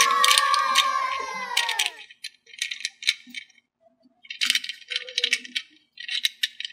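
A pitched tone with overtones slides slowly downward for about two seconds. After it come scattered clicks and short bursts of rattling as plastic toy figures are handled in a metal muffin tin.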